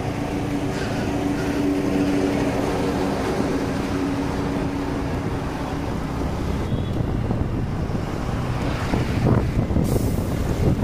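Motorbike engine running on the move, with wind blowing over the microphone; its steady hum fades into the wind noise about six seconds in.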